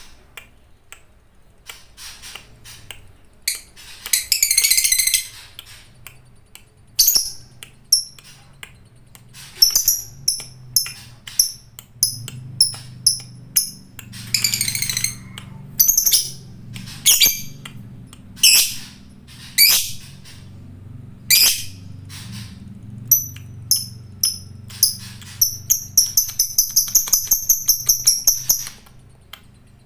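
Fighter lovebird calling: sharp, high, shrill chirps with several long rattling trills, and a fast run of evenly repeated notes near the end.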